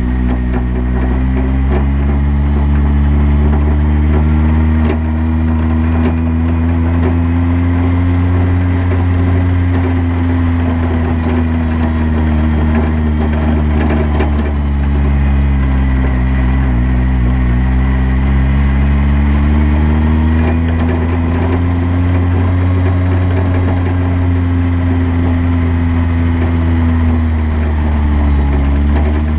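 Rally car's engine, heard from a camera mounted on the car, running at moderate, mostly steady revs that rise and fall slowly, with a few brief dips as the throttle eases off.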